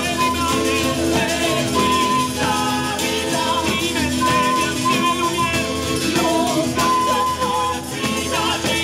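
Live southern Italian folk music from Salento played by a band for dancers: jingling tambourines over guitar, with held melody notes.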